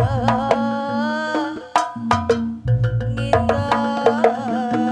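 Live Jaranan gamelan accompaniment. Kendang drum strokes beat out a rhythm under a sustained, wavering melody line and a steady low tone.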